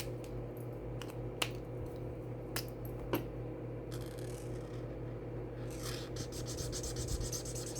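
Colouring in on paper: a colouring tool rubbing and scratching across the sheet with a few light taps, then quick back-and-forth strokes near the end, over a steady low hum.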